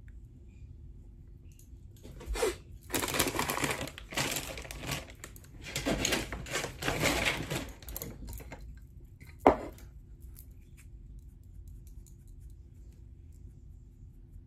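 Rummaging through small hard items, a few seconds of rattling and clattering, then a single sharp knock as something is set down.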